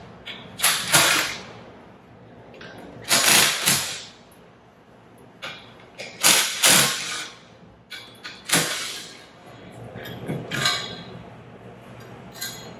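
Cordless impact wrench with a socket, run in about five or six short bursts of under a second each with pauses between, backing out the bolts of an aluminium diaphragm pump's inlet manifold.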